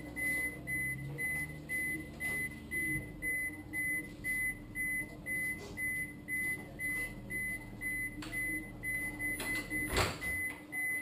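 Refrigerator door-open alarm beeping steadily, about two short high beeps a second, the warning that the fridge door has been left open; a faint steady hum runs underneath. A single knock sounds near the end.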